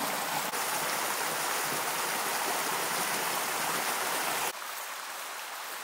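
Fast-flowing river whitewater rushing over rocks in a steady hiss. About four and a half seconds in it drops suddenly to a quieter, thinner rush.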